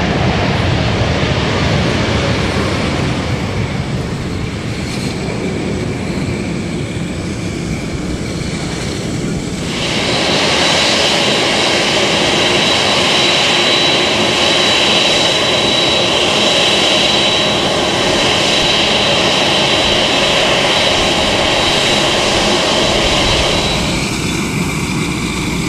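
Jet engines of a taxiing Boeing 747 jumbo jet, a steady rushing noise. About a third of the way in it grows louder, with a high steady whine on top, then drops back shortly before the end.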